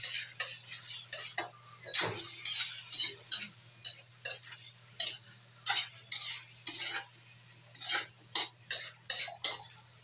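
A metal spatula scraping and clinking against an aluminium wok as raw chicken pieces are stirred and tossed, in quick irregular strokes about two or three a second.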